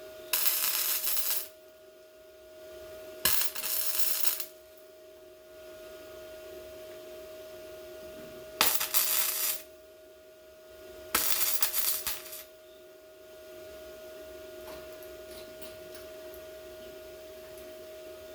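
MIG welder laying four short tack or stitch welds on sheet-metal patch panels, each a crackling, hissing burst of about a second, over a steady hum.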